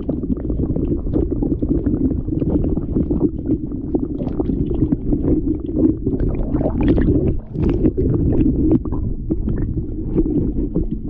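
Sea water recorded with the microphone underwater: a dense, muffled low rumble of surging water, with many small crackling clicks throughout.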